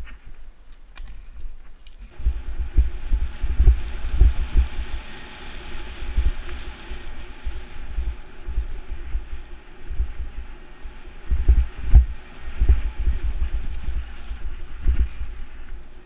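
Wind buffeting an action camera's microphone in irregular low thumps, over the rumble and hiss of a mountain bike rolling fast down a dirt singletrack. It gets much louder about two seconds in, as the bike picks up speed.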